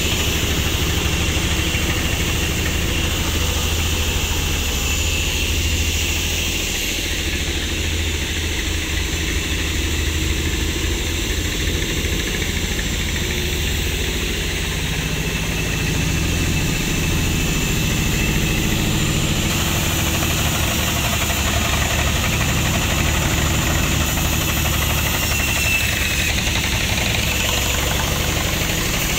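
An engine running steadily at a low, even speed, with a rapid low pulsing beat.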